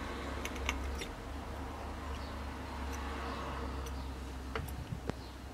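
Steady low hum with a few light clicks and ticks, about half a second in and again near the end, from a soldering iron with a coiled copper-wire tip being worked against a circuit board.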